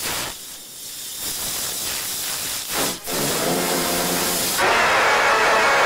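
A person hissing a long drawn-out "ffff", then about three seconds in breaking into a loud yell held at one pitch that gets louder near the end: the "FFFFUUUU" rage-face scream.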